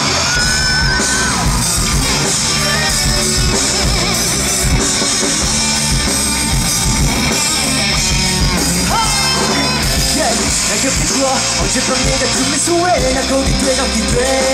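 Rock band playing live, loud and steady, with vocals over the band.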